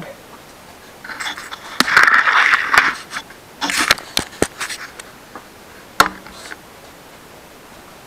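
Camera handling noise as the camera is picked up and moved: rubbing and scraping for a couple of seconds, then several sharp clicks and knocks, the sharpest about six seconds in.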